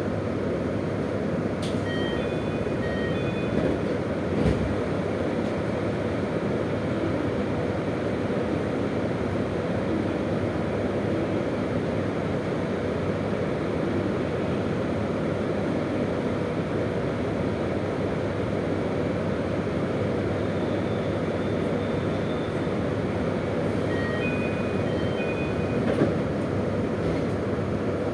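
A JR Hokkaido KiHa 201 series diesel railcar under way: a steady rumble of engine and wheels on the rails, with a couple of single knocks. Short high pulsed tones sound twice, about two seconds in and near the end.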